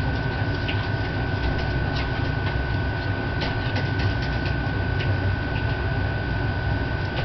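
Steady low hum and hiss with a constant thin high whine, broken by scattered faint ticks.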